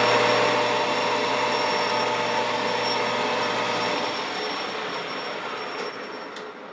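Metal lathe running with its chuck spinning, a steady whirring gear-and-motor noise with a faint high whine. The low motor hum stops about four seconds in and the noise then dies away gradually as the chuck coasts down.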